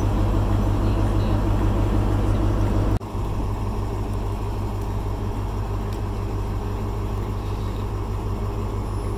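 Class 43 HST power car's diesel engine running steadily with a deep hum. The sound cuts abruptly about three seconds in, then the same engine drone continues a little quieter.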